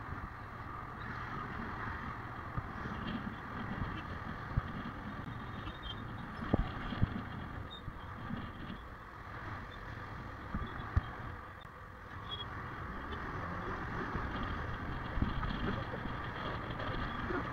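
Royal Enfield Himalayan BS6's 411 cc single-cylinder engine running while the motorcycle is ridden along a city road, mixed with steady wind and road noise. A few short knocks come near the middle.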